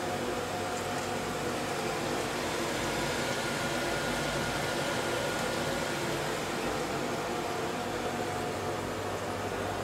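Steady hum and hiss of a kitchen range hood fan running, with a few faint steady tones and no change throughout.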